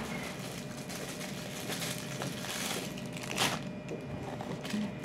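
Plastic packaging crinkling and rustling as it is handled, with a louder crinkle about three and a half seconds in.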